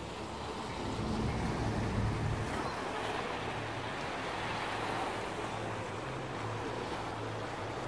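Sea waves washing along the shore, with wind blowing on the microphone.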